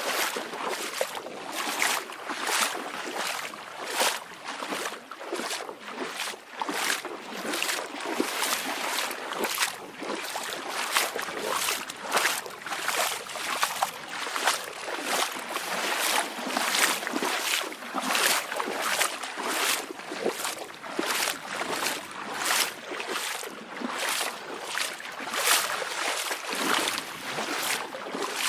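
Small waves lapping and splashing at the water's edge: a quick, irregular run of short splashes, with little deep rumble of breaking surf.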